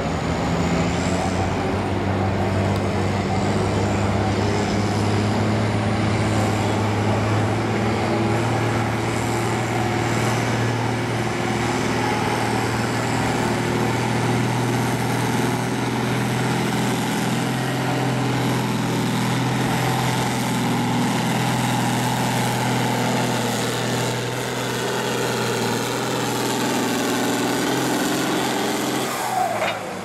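International 1256 Turbo tractor's six-cylinder turbo-diesel engine running hard and steady under load as it pulls a weight-transfer sled. Near the end the revs fall away as the pull finishes.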